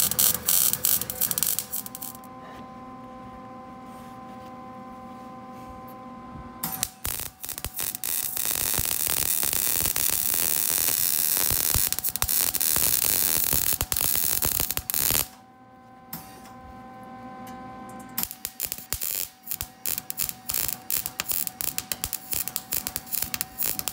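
MIG welder arc crackling as a bead is run on the steel exhaust pipe. The arc stops twice for a few seconds, about two seconds in and again around fifteen seconds in, leaving only a steady hum.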